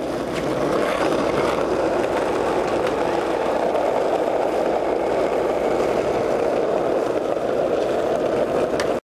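Skateboard wheels rolling on rough asphalt: a steady rolling rumble with a faint click or two, cutting off suddenly near the end.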